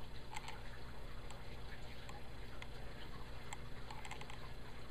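Steady low hum with scattered light clicks, including a quick run of several clicks about four seconds in.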